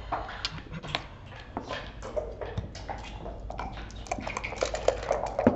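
Backgammon checkers clicking as they are picked up and set down on the board. Near the end comes a rapid run of clicks, dice being shaken in a dice cup, and then a single louder knock as they are thrown onto the board.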